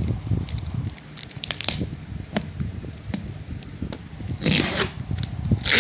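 A small knife blade cutting and scraping through the plastic wrapping on a white box, with scattered ticks and crackles, then two louder scratchy rips of the plastic, one about four and a half seconds in and one near the end.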